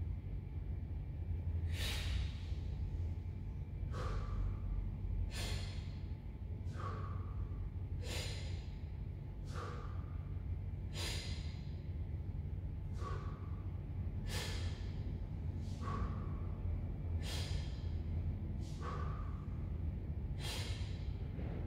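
A man breathing deeply and steadily while holding a tuck handstand, one full breath about every three seconds. It is controlled diaphragm breathing, with a stronger and a softer breath sound in turn, over a steady low hum.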